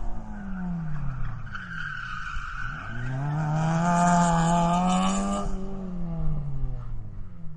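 Car engine revving while its tyres screech. The engine note falls, climbs again and holds, then falls away, and the tyre squeal is loudest from about three and a half to five and a half seconds in.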